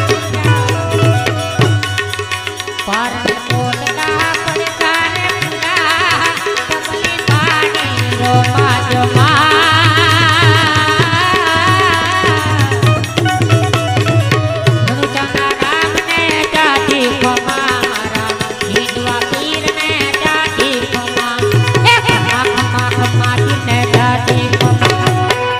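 Instrumental interlude of a devotional bhajan: tabla playing a steady rhythm under a wavering, ornamented melody on Indian banjo, without singing.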